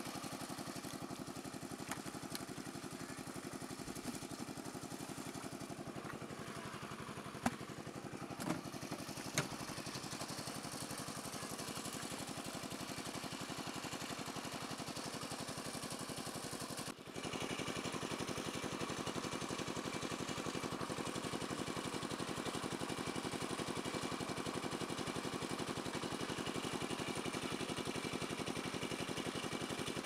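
An engine running steadily at a constant speed, with a few sharp knocks about seven to nine seconds in. The drone drops out for an instant about seventeen seconds in and comes back slightly louder.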